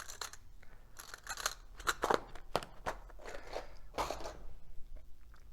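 Irregular clicks and scrapes of small clamps and bulldog clips being handled and fitted onto a balsa wing's edge.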